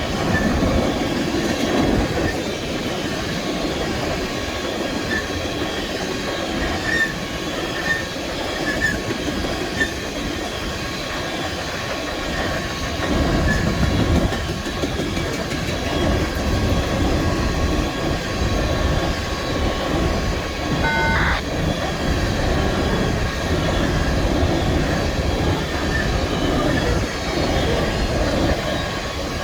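BNSF train cars rolling past, a continuous rumble and rattle of wheels on rail with faint steady squealing tones above it.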